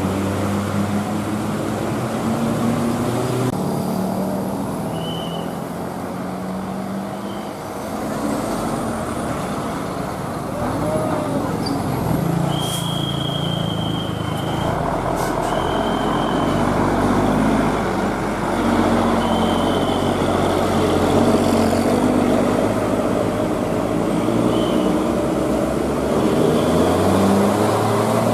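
Heavy bus engines running on a winding road, their pitch shifting every few seconds, over continuous road and traffic noise. A few short high-pitched beeps come and go.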